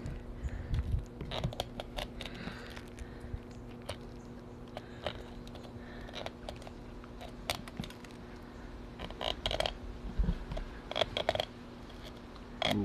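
Knife cutting along a crappie's rib cage: irregular small clicks and scrapes as the blade rides over and catches on the rib bones, with a faint steady hum underneath.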